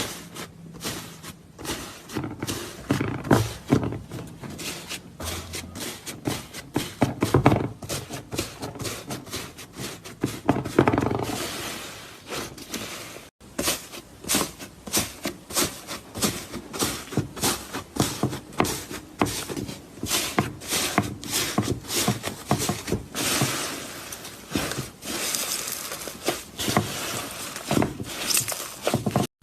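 Slime being squeezed and poked, giving rapid irregular crackling clicks and pops, with a brief break about halfway through.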